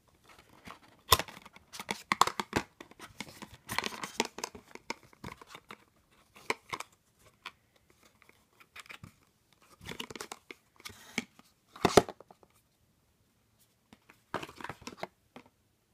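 A small cardboard advent-calendar box being pulled open and its packaging handled: bursts of scraping, tearing and crinkling of card with sharp clicks, separated by short quiet pauses, the loudest near the end.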